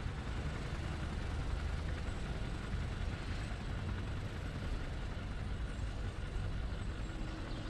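Cartoon vehicle sound effect: a steady low engine rumble with an even hiss over it, as the animated helicopter and pickup truck move along.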